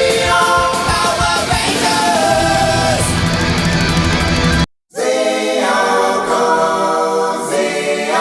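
Rock music with a singing voice, loud and steady; it cuts out for a split second about halfway through, then comes back without its bass for a few seconds.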